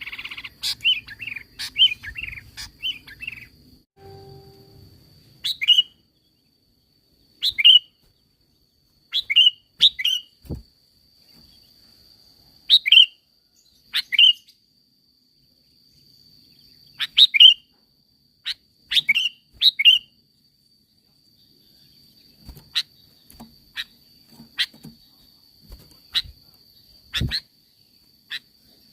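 Sooty-headed bulbul (kutilang) calling: a quick run of chirps at the start, then short, sharp, down-slurred call notes, single or in pairs, every second or two, turning to sharper clicking notes near the end.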